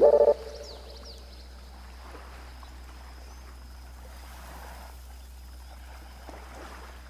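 Calm sea waves washing softly and steadily on a beach, with a slight swell midway. Chime-like music stops just after the start.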